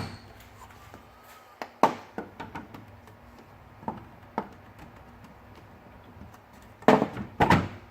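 Plastic clicks and knocks as the front grille's plastic retaining latches are pushed down and pulled free: one sharp click about two seconds in, two lighter taps around four seconds, and a louder cluster of clicks near the end.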